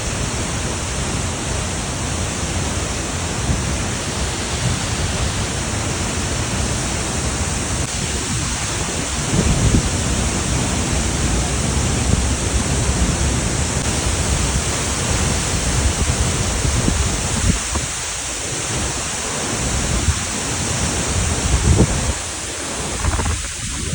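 Steady rushing roar of a waterfall, with uneven low rumbling from wind on the microphone.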